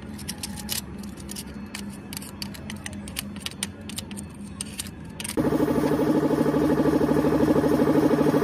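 A screwdriver scratching and picking at crusted coating on a metal bracket, in many small clicks and scrapes. About five seconds in a loud, steady buzzing hum with a fast flutter starts: a butane hand torch burning.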